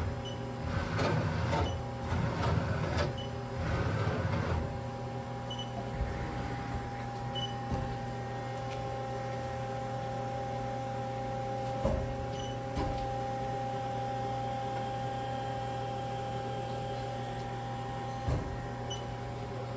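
Haas SL-20 CNC turning center running: uneven mechanical noise for the first few seconds, then a steady whine over a low hum. A few short clunks break in about halfway through and again near the end.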